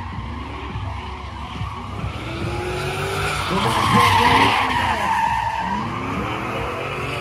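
A pickup truck's engine revving up and down with tyres squealing as the truck spins and slides through a burnout on a wet track, loudest about four seconds in as it swings past close by.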